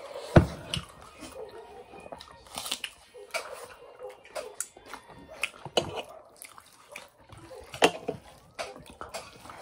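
Close-up eating sounds of two people chewing rice and curry with their mouths open: wet lip smacks and mouth clicks in an irregular run, one sharp smack about half a second in and another loud one near the end.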